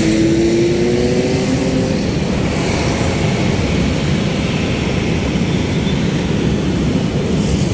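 Passenger ferry's engine running steadily under way, a low drone with a slightly rising pitch in the first couple of seconds.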